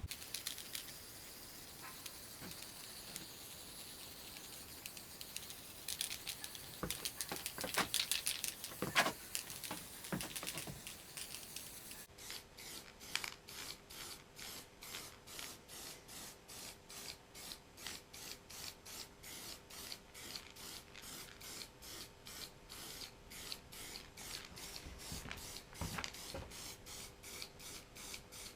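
Hand abrasive work on the metal of an old bench vice: irregular scraping at first, louder for a few seconds in the middle, then even back-and-forth rubbing strokes at about two and a half a second.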